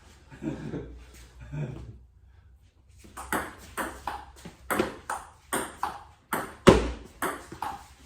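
Table tennis rally: the celluloid ball clicks sharply back and forth between paddles and table, about two hits a second, starting about three seconds in, with one much louder hit near the end.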